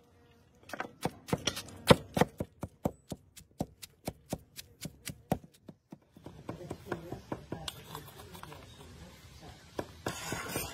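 Knife chopping on a cutting board in a steady run of about four to five strokes a second, stopping about halfway through. Softer, irregular handling noise follows, with a short rustling burst at the very end.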